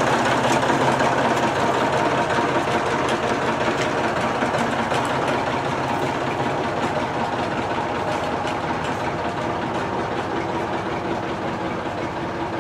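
A forklift's engine running steadily while it moves off carrying a pulled engine on its forks, slowly growing fainter as it goes.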